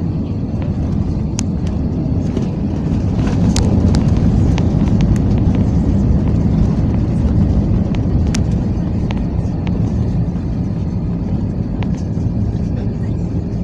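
Airbus A320 cabin noise: a loud, steady low rumble with a few sharp rattles and clicks from the cabin fittings.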